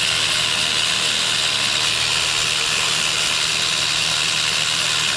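Compressed-air tool running steadily with a loud, even hiss of air.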